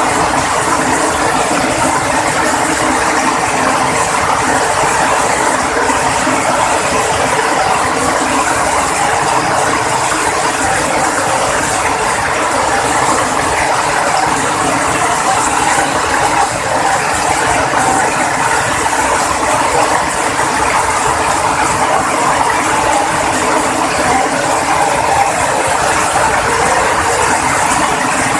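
Heavy rain pouring down: a loud, steady, dense rush of raindrops that does not let up.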